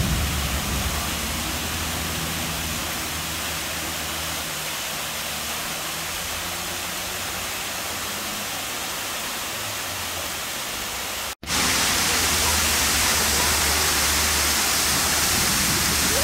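Steady rushing of a flash-flood waterfall, muddy water pouring down a rock face. The sound cuts out for an instant about eleven seconds in and comes back a little louder.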